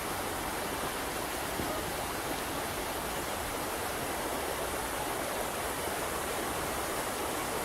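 Small waterfall rushing steadily, an even hiss of falling water with no breaks.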